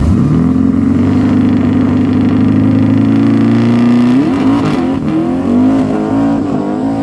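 Drag car's engine revving hard: the pitch climbs quickly, holds at steady high revs for about four seconds, then wavers up and down.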